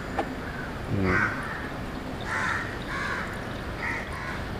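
Crows cawing a few times, over a steady low background noise.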